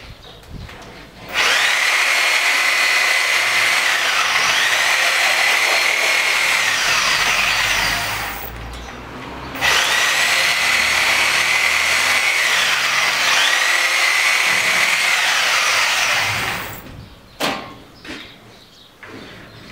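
A power tool running in two long bursts, about six and seven seconds each, with a short break between, a steady high whine over a rough noise.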